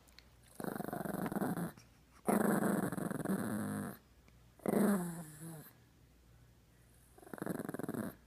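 Chihuahua growling four times, each growl about a second or more long with short pauses between, the third sliding down in pitch at its end.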